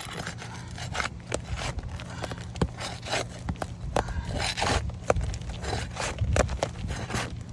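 An asphalt roof shingle being lifted and worked loose by hand, giving irregular scraping and crackling with many short clicks.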